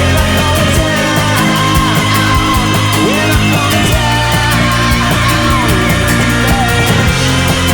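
Loud rock music: drums with steady cymbal hits under bass and distorted guitar, a lead line bending and sliding in pitch.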